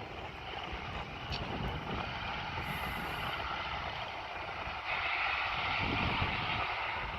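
Jet aircraft engine noise, a steady rushing sound that slowly grows louder, with a brighter hiss coming in about five seconds in.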